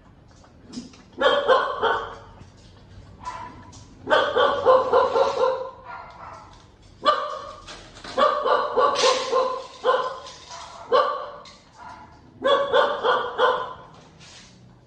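A puppy barking in several bursts of pitched calls, each a second or two long, with short gaps between.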